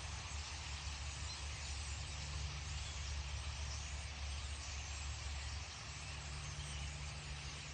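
Steady massed chatter of a large flock of birds, an even wash of many small calls, over a low steady hum.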